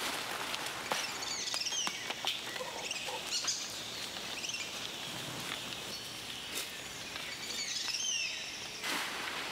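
Rainforest ambience: a bird gives short downward-sliding chirps several times over a steady background hiss, with scattered light ticks and patter.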